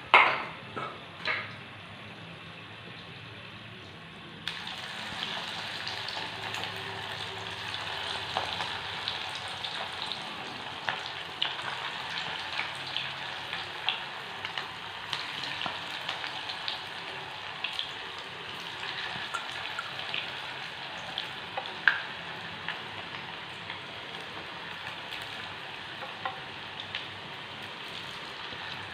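Bread-and-chicken pakoras deep-frying in hot oil: a steady sizzle with scattered crackles and pops that grows louder about four seconds in. A few sharp knocks come right at the start.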